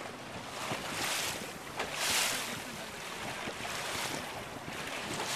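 Water rushing and splashing along the hull of a small motorboat under way, swelling and fading every second or two, with wind on the microphone. One sharp slap just under two seconds in.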